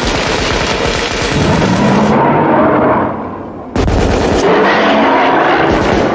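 Hunting rifles firing in a rapid, overlapping volley. The shots die down about three seconds in, then start again abruptly just before four seconds.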